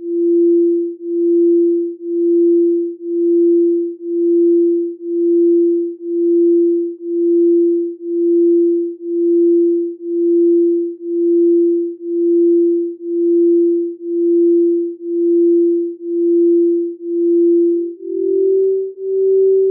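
Electronic pure sine tone pulsing on and off about once a second, an isochronic tone for chakra tuning. Near the end it steps up to a slightly higher pitch and keeps pulsing.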